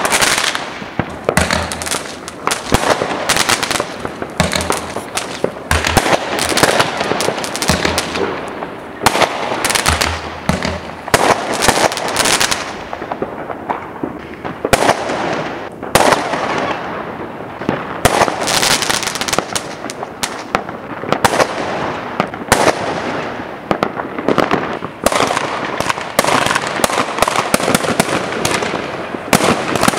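Aerial fireworks going off in a barrage of sharp bangs and pops, several a second. They ease briefly about halfway through, then pick up again.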